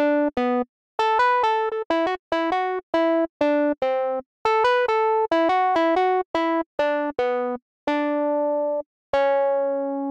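A simple synthesizer voice, Ableton Live's Analog synth, playing back a sung melody converted to MIDI: a quick run of short, separate notes, ending on a longer held note about nine seconds in. One note of the converted line is wrong, which may have been a slip in the singing.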